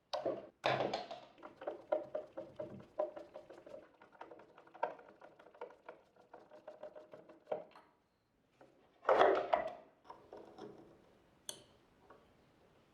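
Parts of a Nespresso capsule coffee machine being handled and taken apart: a quick run of small clicks and knocks for several seconds, then a louder clatter about nine seconds in.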